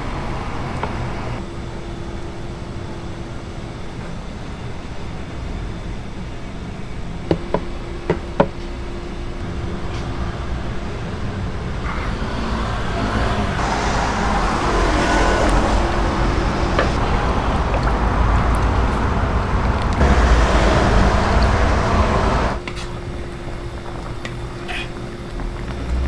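Gas burner under a wok running with a steady low roar, with a few sharp knocks about a third of the way in. Then a hiss and sizzle as tteokbokki sauce is ladled into the hot wok of rice cakes; it builds for several seconds and cuts off abruptly near the end.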